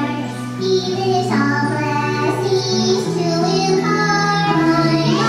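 An old song about trusting in Jesus, sung over instrumental accompaniment: a singing voice moving from held note to held note over steady low notes that change every second or so.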